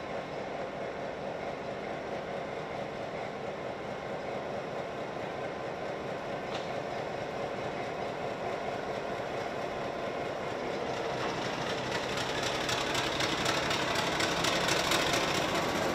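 Victorian Railways Y class diesel locomotive running slowly as it rolls closer along the platform, its engine growing louder. In the last few seconds a rapid clatter grows as it draws near.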